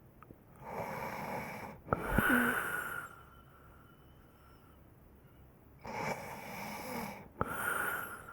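A person snoring, two breaths about five seconds apart. Each breath starts with a rasping stretch, catches with a short click, then goes on into a louder second part with a thin whistling tone.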